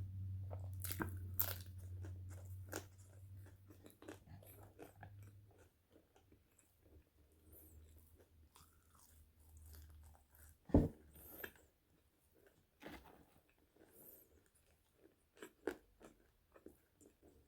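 Close-miked mouth sounds of someone biting and chewing crispy french fries: repeated crunches and wet chewing clicks. A low hum runs under the first six seconds, and a single sharp knock stands out about eleven seconds in.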